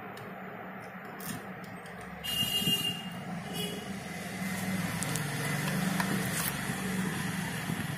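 A short high electronic beep about two seconds in, with a fainter second beep a second later, and a few sharp clicks of wire and terminal handling, over a low steady engine-like hum that swells in the second half.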